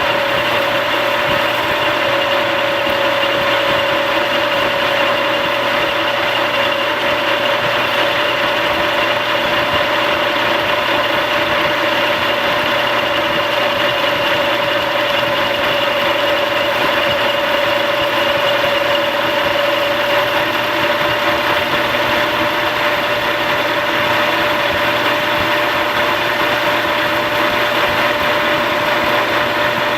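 Metal lathe running steadily with its Bridgeport True Trace hydraulic tracer unit and three-phase converters powered up, giving a constant mechanical hum with a steady mid-pitched whine that does not change.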